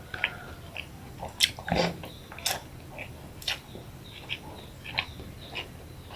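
Close-mic eating sounds: chewing a mouthful of white rice and boiled eggplant, with irregular wet smacks and clicks of the mouth.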